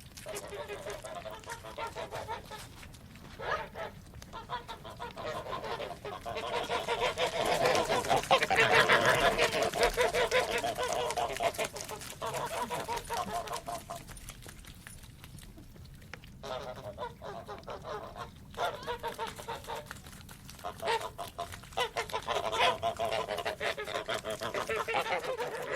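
A flock of domestic geese honking, many calls overlapping. The calling is loudest about eight to eleven seconds in, dies down briefly around fifteen seconds, then picks up again.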